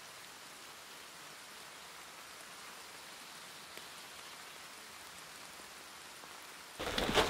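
Steady rain falling, an even hiss with no distinct drops standing out. Shortly before the end, a much louder run of close rustling and clicking starts abruptly.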